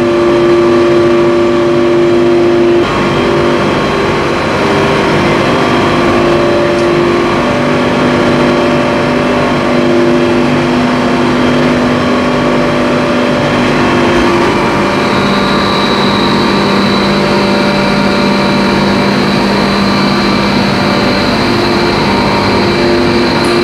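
Hertz HSC FRECON 60 industrial rotary screw air compressor with a 60 kW inverter-driven motor running: a loud, steady machine drone with several humming tones that shift in pitch a few times. About halfway through, a lower hum and a high whine come in.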